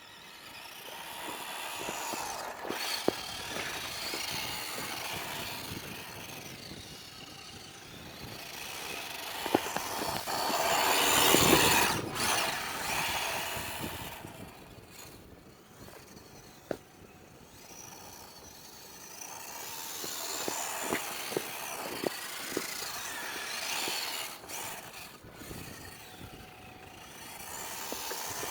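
WPL D12 RC drift truck driving: its small electric motor and drivetrain whine with tyre noise, swelling and fading several times as it comes close and moves away, loudest about ten seconds in, with scattered sharp clicks.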